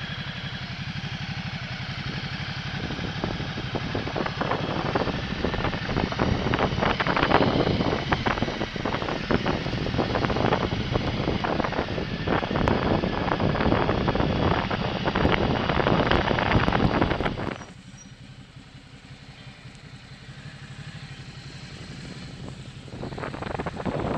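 Motorcycle engine running at low speed, heard from the rider's own bike, with a loud rough rushing noise over it. About three-quarters of the way through the sound drops suddenly to a quieter engine hum, which grows louder again near the end.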